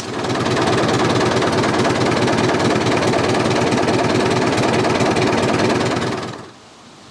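David Brown 990 Selectamatic tractor's three-cylinder diesel engine running steadily with a rapid, even beat, dropping away about six seconds in to faint background.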